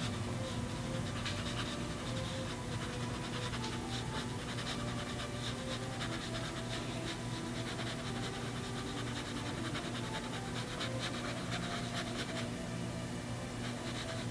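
Light brush bristles scratching on canvas in many short, quick strokes, over a steady low hum in the room.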